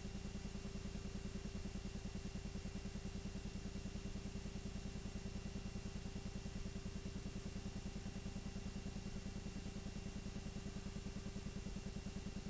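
Steady machine running noise: a low hum with a fast, even pulsing rhythm and a constant whine above it, unchanging throughout.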